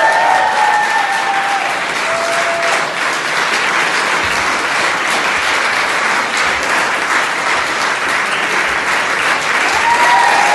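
Applause: many hands clapping steadily and densely. The boys' choir's last held note fades out over it in the first second or so.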